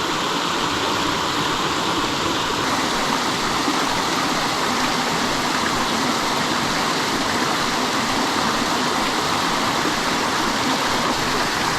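Steady rushing of water pouring through a small spillway into a river.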